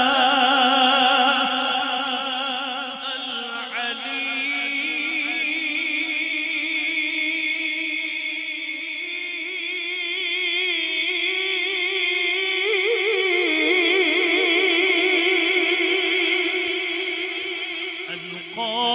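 A male naat reciter singing long drawn-out notes into a microphone, with a strong vibrato. The pitch climbs in steps, about four seconds in and again around thirteen seconds.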